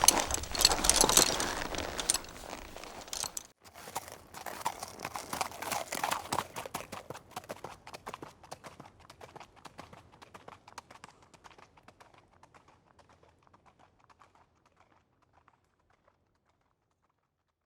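Horse hooves clip-clopping: a loud, dense stretch of hoofbeats for the first three and a half seconds, then after a short break a long run of separate hoof strikes that fades gradually away.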